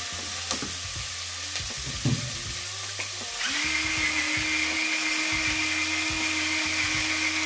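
Pumpkin and onion sizzling as they fry in butter in a stainless steel pot, with a wooden spoon stirring and clicking against the pot. About halfway through a steady high whine starts and holds.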